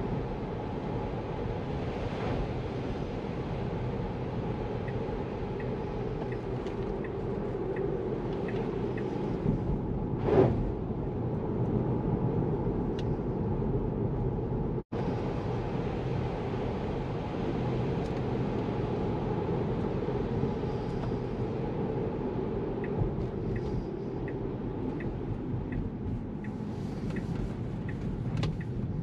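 Steady road and tyre noise inside a Tesla's cabin while driving on wet roads. A regular light ticking comes in for several seconds at a time, once early and once near the end. There is a short louder swell about ten seconds in, and an instant dropout halfway.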